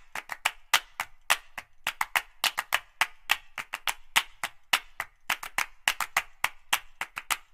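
A rapid, uneven run of sharp clicks or taps, about five or six a second, with silence between them.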